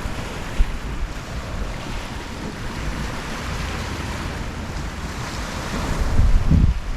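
Gentle ocean waves washing up the shore in a steady hiss of surf that swells and fades. Wind buffets the microphone with low rumbles near the end.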